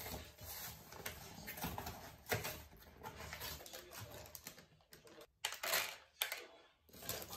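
Rustling and crinkling of a cardboard box and a plastic bag being handled, then dried manure pellets dropped by hand into a plastic tub as a scatter of light, irregular clicks.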